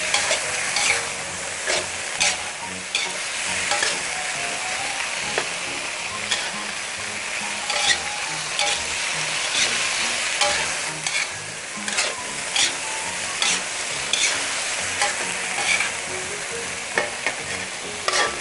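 Pork and yard-long beans sizzling in red curry paste in an aluminium wok, stir-fried with a metal spatula that scrapes and clicks against the pan at irregular intervals while the beans cook through.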